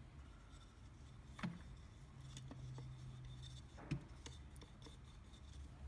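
Faint handling of the fencing stapler's metal parts while oil is applied: light rubbing with a few small ticks and two sharper clicks, about a second and a half in and again about four seconds in.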